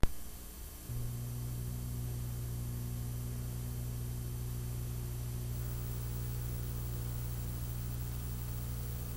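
VHS tape playback noise: a sharp pop as play begins, then steady tape hiss, joined about a second in by a low, steady mains hum.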